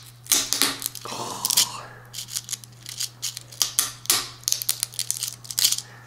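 Utility knife blade cutting and pressing through a dry rattlesnake rattle's hard keratin segments against a cutting board: a string of irregular sharp cracks and crunches.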